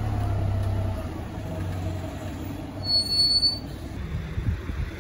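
Engine of a city route bus running as it moves off, a low rumble that is loudest in the first second and then fades. A brief high tone sounds about three seconds in.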